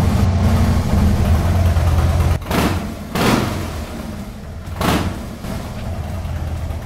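Harley-Davidson Super Glide's V-twin engine running, with a steady deep note, blipped with the throttle three times, about two and a half, three and five seconds in.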